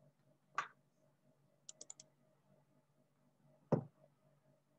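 Clicks at a computer keyboard and mouse: a single sharp click, a quick run of four light taps about a second later, then a louder click with a dull thump near the end.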